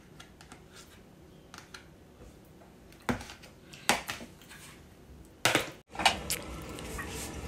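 Metal serving spoon scraping and clinking against a plastic food container and a ceramic plate as food is served, with a few sharp clinks in the middle. Near the end the clatter gives way to a steady noise.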